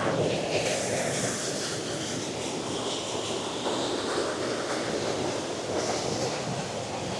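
Steady rushing of a rainforest river and waterfall pouring over rocks.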